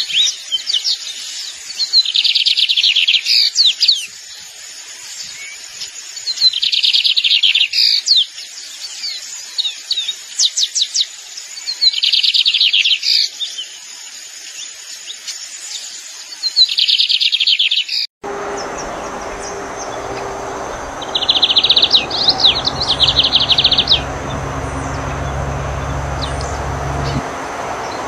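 Lined seedeater singing: short buzzy, high trills about every five seconds, with sharp chip notes between them. About eighteen seconds in the recording changes, and two more trills follow over a steady low rumble and hiss.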